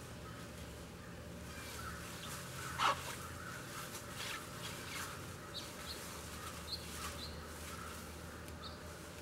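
Birds chirping, with short high calls scattered throughout over a faint steady low hum. A single louder sharp sound comes about three seconds in.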